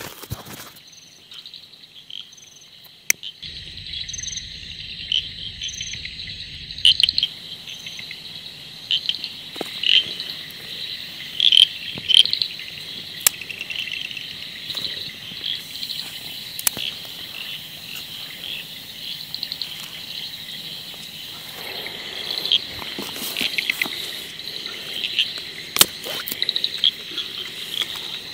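Night-time insect chorus: a steady high chirring of crickets with louder pulsed trills, broken by occasional sharp clicks.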